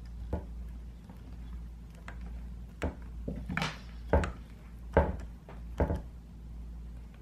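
Hex driver seating in and turning small socket-head set screws on the metal cover plate of a Benjamin 392 air rifle's breech. Irregular light clicks and knocks of the steel tool against the screws and plate, the loudest a little after four seconds in and at five seconds.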